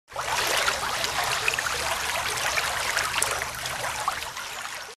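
Water bubbling and trickling, a dense stream of small bubbles popping, over a faint low hum; it starts suddenly and cuts off abruptly.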